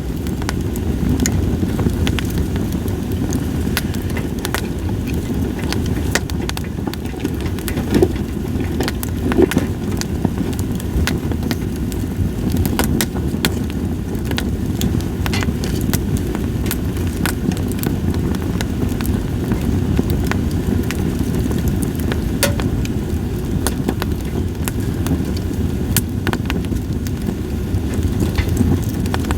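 Campfire of split sawtooth oak (kunugi) logs crackling: irregular sharp pops and snaps, a couple of stronger ones about eight and nine seconds in, over a steady low rushing noise.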